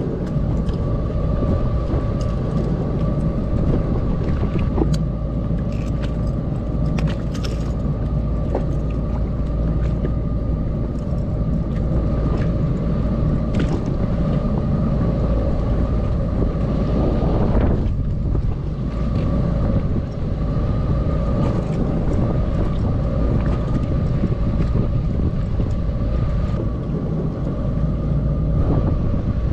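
Jet ski engine running steadily at low speed, a constant hum with a steady higher tone over a low rumble of wind and water. About seventeen seconds in, the tone dips and drops out for a moment, then comes back.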